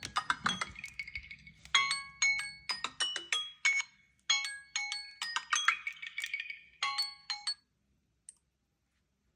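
A Samsung Galaxy phone playing an alert tone: a bright, marimba-like chime melody in short repeated phrases. It stops well before the end, followed by one faint click.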